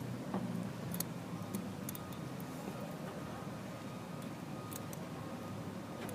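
Faint, sharp metallic ticks every half second to a second or so, as a lock pick and tension wrench work the pins inside a lock cylinder, over a steady outdoor background hum.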